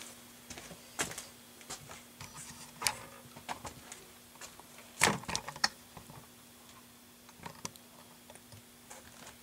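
Scattered clicks and knocks of hands handling a jukebox's parts, the loudest knock about five seconds in, over a faint steady hum.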